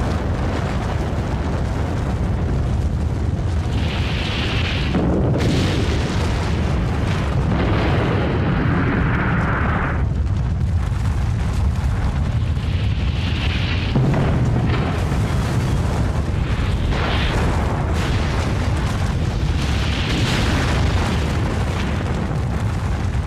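Deep, continuous rumble of a nuclear explosion, with the roar swelling and easing in waves.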